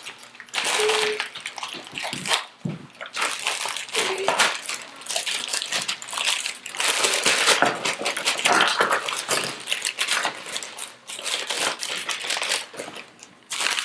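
Thin plastic packaging bags crinkling and rustling as they are torn open and handled, with the plastic toy track pieces inside shifting against the bag.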